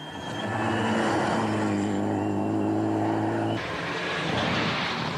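Mitsubishi Lancer Evolution rally car's engine held at high, steady revs. About three and a half seconds in, the sound cuts abruptly to a rougher, noisier car engine with road noise.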